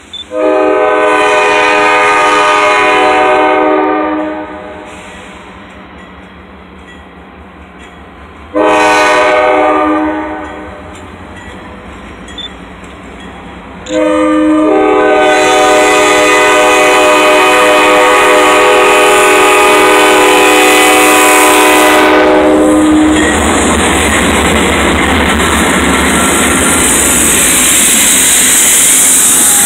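Freight locomotive's air horn, several notes at once, sounding for a grade crossing: a long blast, a short one, then a long blast held for about nine seconds. Then the locomotive passes close by, its engine and wheels on the rails loud and even.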